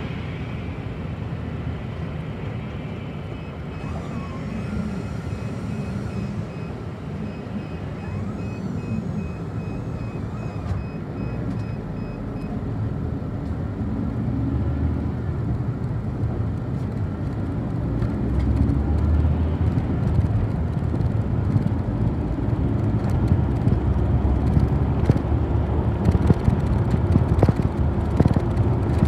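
City bus running, heard from inside the cabin: a steady engine and road-noise rumble that grows louder in the second half, with a few light rattles near the end.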